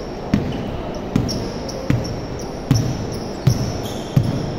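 A basketball being dribbled on a hardwood gym floor, six steady bounces about 0.8 s apart, ringing in the large hall. Short high squeaks sound between the bounces.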